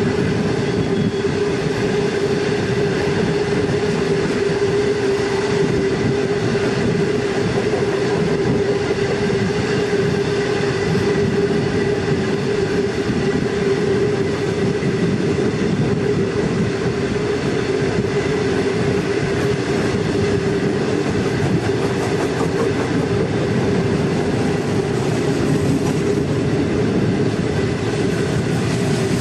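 Long freight train of dark wagons running steadily on the rails: a continuous rumble of wheels on track with a steady hum.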